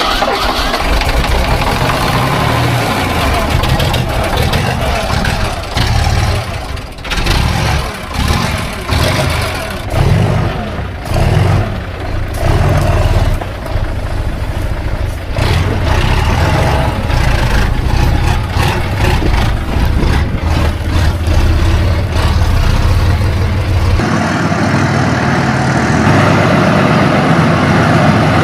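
Concrete mixer truck's diesel engine running just after its first start in ten years, surging and dipping unevenly for the first dozen seconds, then running steadily.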